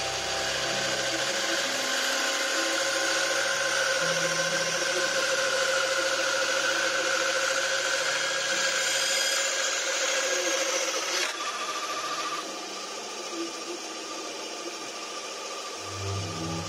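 Benchtop band saw cutting through a slab of mammoth ivory: a steady rasping hiss over the machine's hum. About eleven seconds in the cut ends and the saw runs on free, a little quieter and with a different tone.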